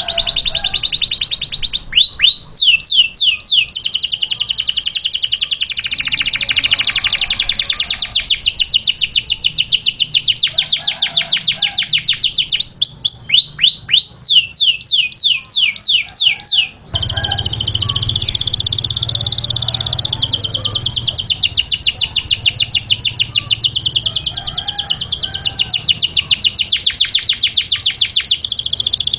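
Canary singing a long, unbroken song of fast trills, with two runs of loud downward-sweeping notes, one near the start and one a little before halfway. The song drops out for an instant just past halfway, then goes straight on into another fast trill.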